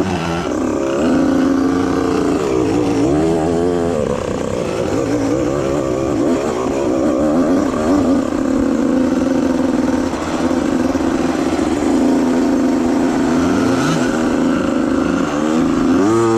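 85cc two-stroke dirt bike engine revving up and down under load, its pitch rising and falling over and over between steadier held stretches.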